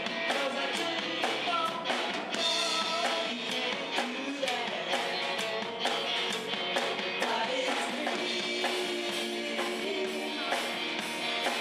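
Live rock band playing: electric guitars over a drum kit keeping a steady beat.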